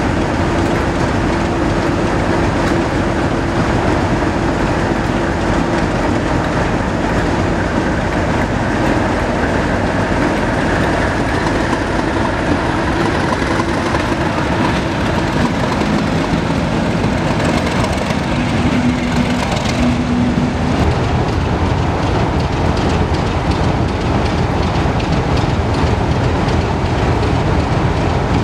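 Class 37 diesel locomotive 37198 running its English Electric V12 engine as it moves past at low speed and pulls away, a loud, continuous engine sound with a steady note. The sound deepens about two-thirds of the way through.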